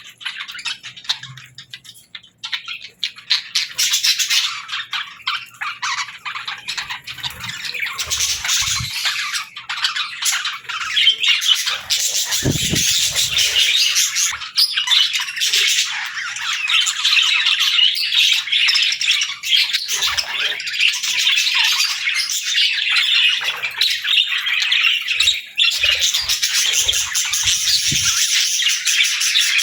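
Budgerigars chattering and chirping in a dense, continuous stream of overlapping calls, growing louder after the first few seconds. A few brief low thumps come through.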